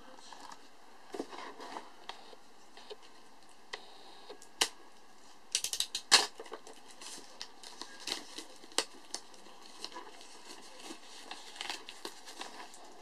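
Plastic shrink-wrap on a boxed Blu-ray set being slit with a utility knife and peeled off by hand, crinkling and crackling, with a burst of sharp clicks about five to six seconds in.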